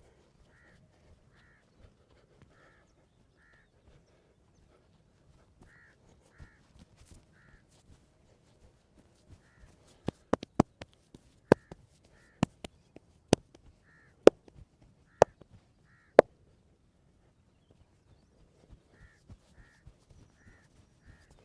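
Crows cawing repeatedly in the background. Midway through comes a run of about eight loud, sharp cracks spread over some six seconds, the loudest sounds here.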